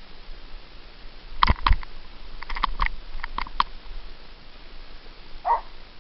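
A mountain bike jolting over a rocky trail: two sharp knocks, then a quick string of lighter clicks and rattles. Near the end a dog gives one short bark.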